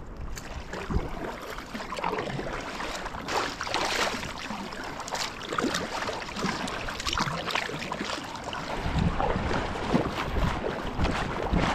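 A double-bladed kayak paddle dipping and pulling through sea water, with repeated splashes and drips about once a second. Wind rumbles on the microphone in the later seconds.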